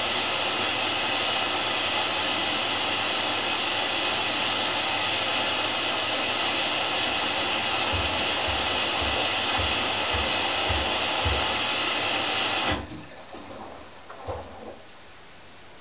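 Candy GrandO Plus washing machine taking in water on its wool wash: a steady rush of water through the inlet that cuts off abruptly about 13 seconds in as the fill stops. Faint low thuds follow.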